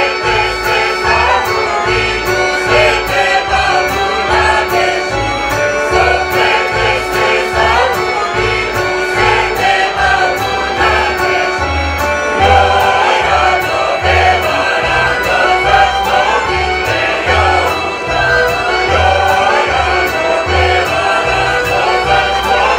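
Serbian folk dance music from the Niš region, with singing over a steady bass beat.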